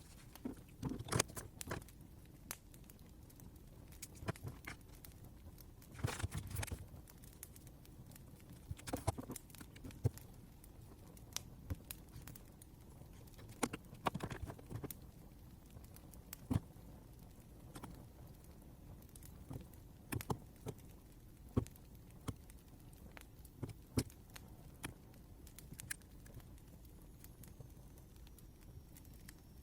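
Irregular small crackles, clicks and brief rustles over a faint steady hiss, with denser clusters about a second in, around six seconds and around fourteen seconds.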